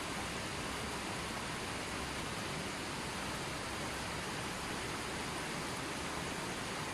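Running water flowing steadily: a continuous, even rush with no music.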